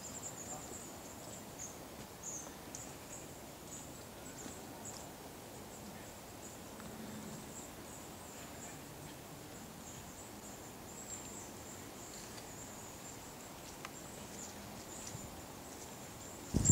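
Quiet outdoor garden ambience with faint, very high-pitched chirps of small birds scattered throughout.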